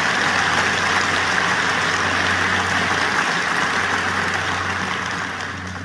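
Large audience applauding, dense steady clapping that begins to die down near the end.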